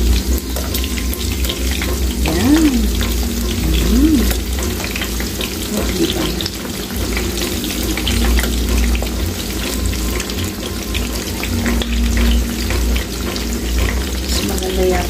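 Batter-coated tempura shrimp deep-frying in hot oil in a pan: a steady sizzle full of small crackling pops.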